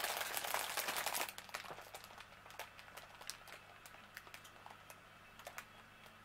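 Paper rustling and hand-handling noise for about the first second, then a few faint, scattered light taps and clicks.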